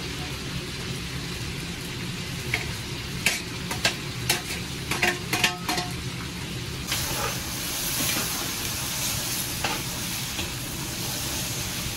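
Meat frying in hot oil in a plov kazan, sizzling steadily, with a stirring utensil knocking and scraping against the pot a few times. About seven seconds in, the sizzle suddenly grows louder and hissier as onion goes into the hot oil.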